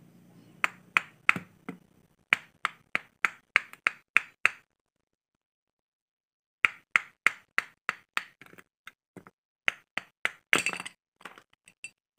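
Sharp metallic clicks from a motorcycle centrifugal clutch shoe assembly being worked by hand with a steel hex key: metal striking metal about three times a second. The clicks come in runs, with a pause of about two seconds near the middle and a brief denser rattle near the end.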